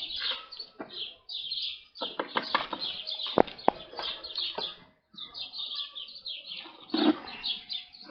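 Many small birds chirping busily without pause, with a few sharp knocks among them, two close together about three and a half seconds in.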